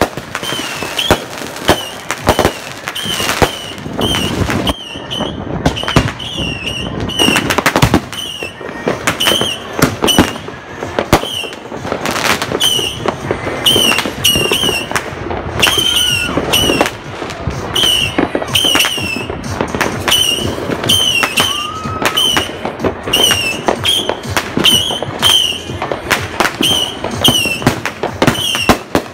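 Firecrackers and ground fireworks going off in a rapid, continuous run of sharp cracks and bangs. Over them, a short high chirp repeats about once or twice a second.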